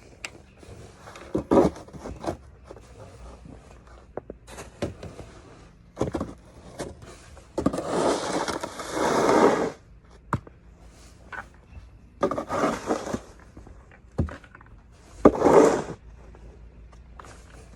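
Snow shovel scraping over the ground in several separate strokes, the longest about two seconds near the middle, with short knocks of the blade in between.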